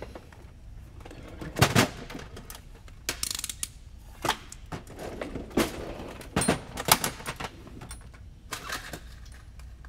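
Small tools and parts being rummaged through and set down on a workbench: a string of sharp knocks and clacks, with a short rattle about three seconds in.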